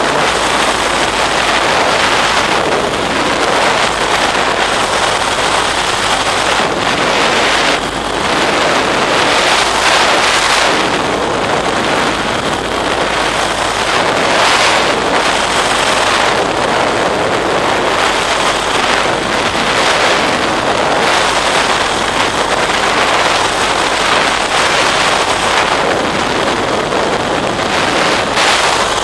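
Wind rushing over the microphone of a camera flying with a paraglider: a loud, steady rush that swells and eases every few seconds.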